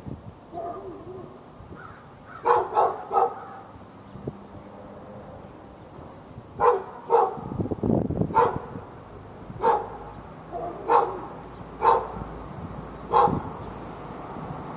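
A dog barking over and over: a quick run of three barks a few seconds in, then single barks about one a second. This is nuisance barking, kept up for hours at the dog next door.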